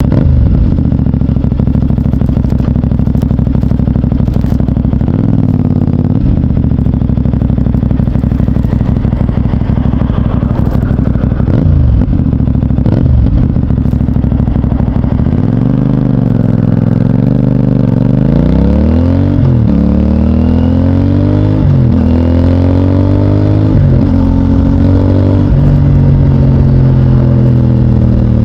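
2024 CFMOTO 450NK motorcycle's 449 cc parallel-twin engine running through its stock exhaust, at low revs at first with a few brief rev changes. About two-thirds in it accelerates through several gears, the pitch rising and dropping at each upshift, then holds a steadier, higher note near the end.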